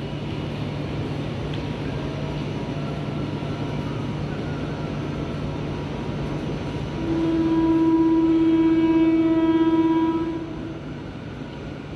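Electric commuter train running with a steady hum and noise, its horn sounding one long blast of about three seconds a little past the middle.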